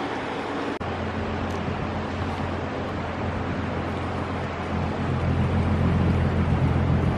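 Motorboat engine running steadily at slow cruising speed, with the hiss of water and wind around the hull; the low engine note grows louder about five seconds in.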